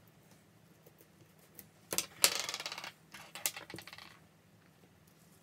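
Tweezers and small phone parts handled on a silicone repair mat: a quick run of clicks and scratching starts about two seconds in and dies away about two seconds later.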